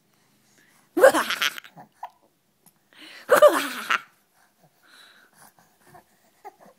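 Baby laughing in two short, high-pitched bursts while being tickled, with the hiccups.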